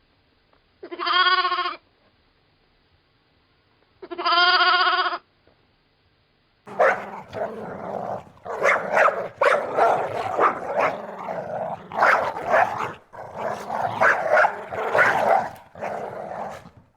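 Two wavering animal bleats, each about a second long and about three seconds apart, then from about seven seconds in a dog barking rapidly and repeatedly.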